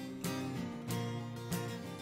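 Acoustic guitar strummed, a chord stroke about every half second with the notes ringing on between strokes.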